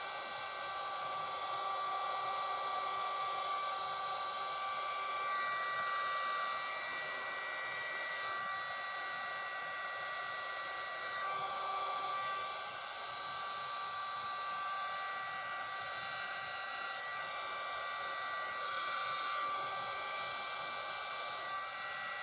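Small handheld craft heat gun running steadily: a hiss of blown air with a thin high whine from its fan motor, dipping briefly about halfway through.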